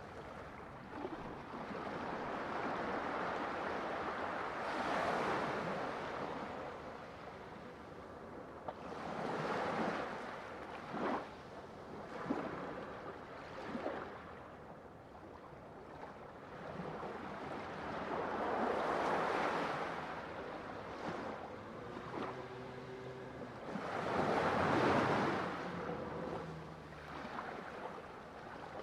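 Ocean surf breaking and washing in, swelling and fading in four slow surges with a couple of short splashes between them.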